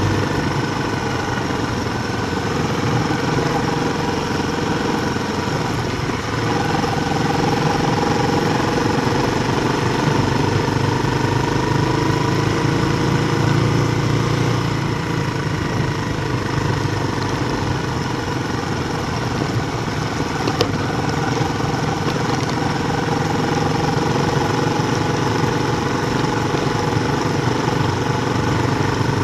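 Steady mechanical running hum from a mountain bike rolling at about 25 km/h, with whining tones that drift slowly up and down in pitch over a rushing background.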